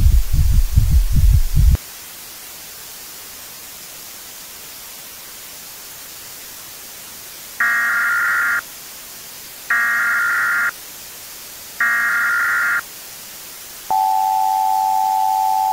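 A low throbbing hum cuts off about two seconds in, leaving a steady static hiss. Then come three one-second bursts of Emergency Alert System data tones (the SAME header), about two seconds apart, followed near the end by the steady EAS attention tone that comes before a spoken warning.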